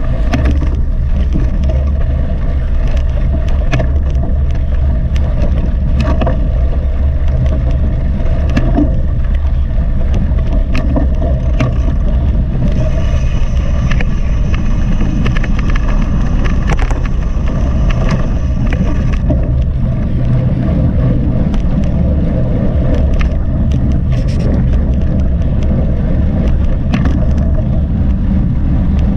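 Mountain bike ridden at race pace, heard from a GoPro: a loud, steady rumble of wind and tyres on the trail, with frequent sharp clicks and rattles from the bike over bumps.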